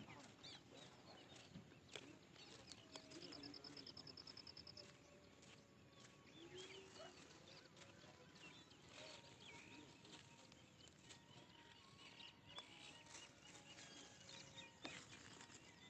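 Near silence: faint rural outdoor ambience with scattered faint bird calls, and a rapid high trill lasting about two seconds, starting about three seconds in.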